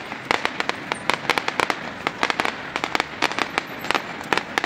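Fireworks going off: a fast, irregular run of sharp cracks and bangs, several a second without a break.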